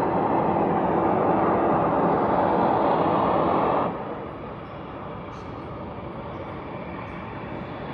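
Loud, steady rumbling drone of unexplained origin, the 'weird sound' taken for something alien; about four seconds in it drops suddenly to a quieter level and carries on.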